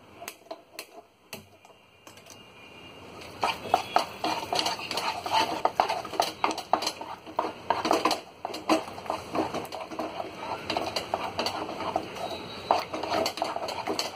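A wooden spatula stirring and scraping a thick cornflour mixture in a steel pan, with many quick knocks and clatters against the pan. It starts a few seconds in, after a quiet stretch.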